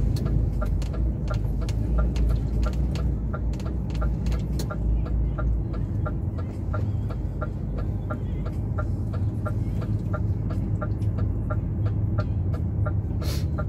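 Truck engine running at low speed, heard inside the cab, with the turn-signal indicator ticking steadily, about three clicks a second.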